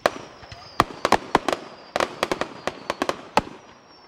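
Fireworks going off in a rapid, irregular string of sharp bangs, more than a dozen reports in a few seconds, with a faint high whistle gliding slowly down beneath them.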